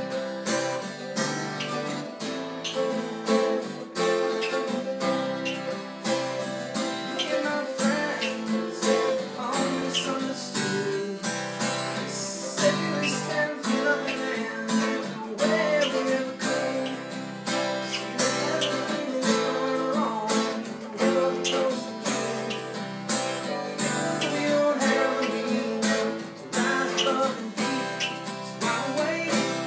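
Acoustic guitar strummed together with a picked mandolin-type instrument, playing a song at a steady rhythm.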